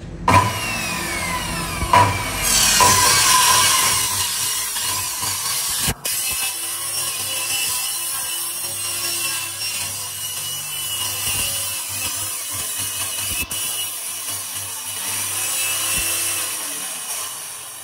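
Bosch handheld circular saw running and cutting through a plywood sheet: a loud, steady high-pitched saw noise, with the pitch sliding in the first two seconds as the blade gets up to speed and bites in, and two brief breaks near the middle.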